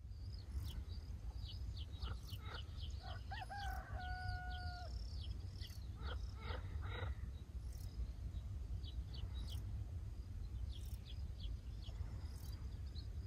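A rooster crows once about three seconds in, its last note held for about a second. Small birds chirp in quick short calls throughout, over a steady low rumble.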